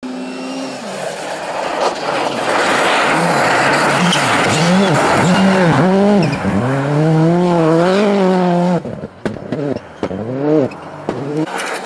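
Rally car engine revving hard, its pitch climbing and dropping again and again as the driver works the throttle and gears, over a hiss of tyres and flying snow. The sound breaks off briefly near the end and then returns.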